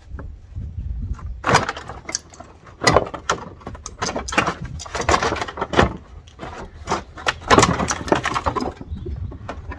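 Plastic inner wheel arch liner being worked out of a car's front wheel well: irregular scraping, rustling and clattering knocks, loudest in bursts around the middle and towards the end.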